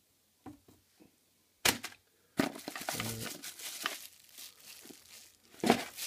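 Clear plastic packaging bag crinkling and rustling as it is handled, after a few short knocks in the first two seconds. Two sharp louder crackles, one about a second and a half in and one near the end.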